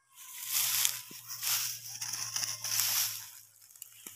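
Footsteps crunching and rustling through dry crop stubble and loose straw, a swell of crackle every half second or so, fading out near the end.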